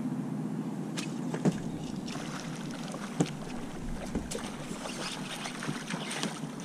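A hooked bass being fought from the front deck of a bass boat: a low steady hum that stops about a second and a half in, then scattered clicks and knocks of the rod, reel and feet on the deck, with the fish splashing at the surface near the end.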